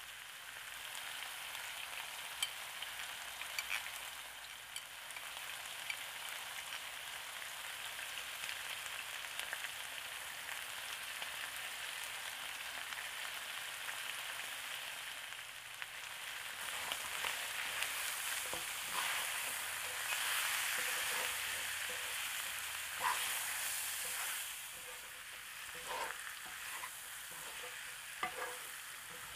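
Chunks of meat sizzling in hot oil in a stainless steel wok, a steady hiss that grows louder past the middle as they are stirred. In the second half a spatula scrapes and knocks a few times against the pan.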